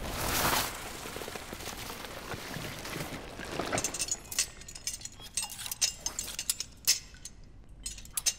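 Film sound effects: a short swelling whoosh, then quiet ambience, then about four seconds in a run of sharp, irregular clicks and taps.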